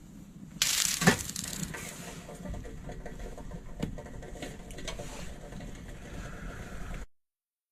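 Crunching and crackling that starts suddenly about half a second in, with sharp snaps among it, and cuts off suddenly near the end.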